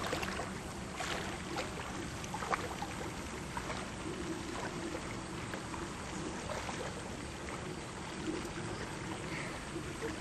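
Lake water sloshing and splashing around people's legs as they wade out, with scattered small splashes over a steady outdoor hiss.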